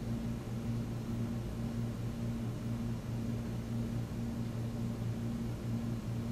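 Steady low electrical hum with an even faint hiss underneath, the upper part of the hum wavering on and off.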